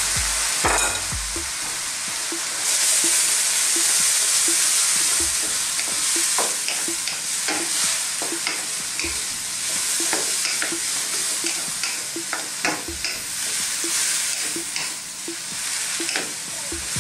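Noodles and vegetables sizzling in a hot wok, stirred and tossed with a wooden spatula that taps and scrapes against the pan in frequent short knocks. The sizzle swells about three seconds in.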